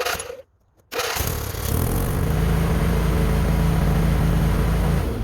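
Craftsman DYT4000 lawn tractor's engine: a short burst of sound, then from about a second in the engine runs steadily. The test run comes on a freshly replaced battery cable.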